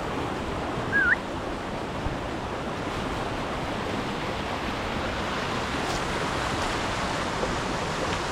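Steady rushing of fast-flowing river water, with a short rising chirp about a second in.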